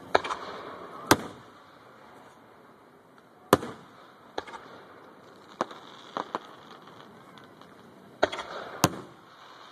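Aerial firework shells bursting overhead: a series of sharp bangs, loud ones at the start, a second in, midway and two close together near the end, with smaller cracks between.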